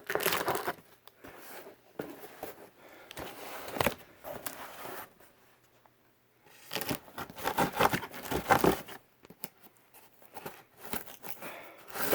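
A shipping package being torn open and its wrapping crinkled by hand, in several irregular bouts of tearing and rustling with a quiet pause of about a second and a half midway.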